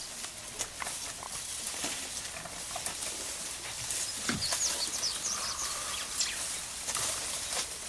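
African elephants feeding in dry grass and brush: steady rustling with many small snaps and crackles of dry stems. A few bird chirps about halfway through, along with a brief low falling sound.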